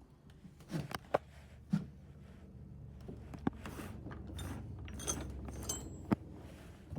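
Objects being handled and moved on shelves: scattered knocks, clicks and clinks, about half a dozen, over a faint low hum.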